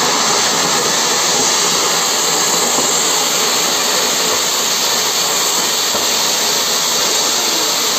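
Large clay-pot fountain firework (matka anar) spraying sparks with a steady, loud hiss.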